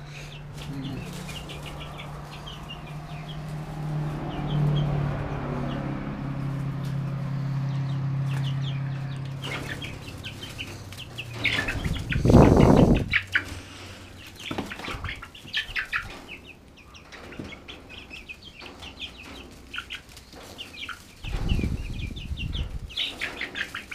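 Young chickens peeping with short, repeated high calls, and a loud burst of wing flapping about twelve seconds in as they scatter, with more flapping near the end. A low steady hum runs under the first ten seconds or so.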